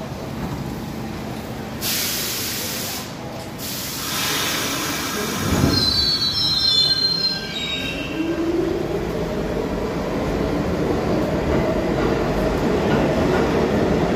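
New York City subway train pulling out of a station: a burst of air hiss about two seconds in, then wheels squealing in falling pitch, then the motors whining up in pitch over the rumble of the cars as the train gathers speed.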